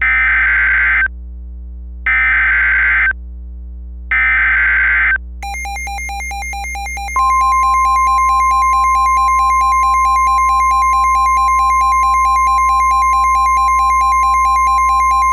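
Emergency Alert System SAME header: three bursts of warbling digital data tones, each about a second long and a second apart. Then the alert alarm starts: a buzzy warbling electronic tone about five seconds in, joined about seven seconds in by a loud steady tone near 1050 Hz, the NOAA Weather Radio warning alarm.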